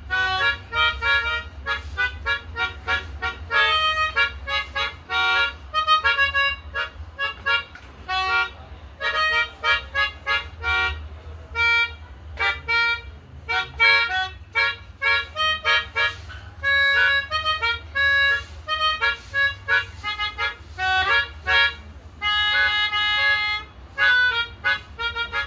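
Pianika (melodica) playing a basuri 'telolet' bus-horn melody in quick, short notes, with a few longer held notes near the end, over a steady low hum.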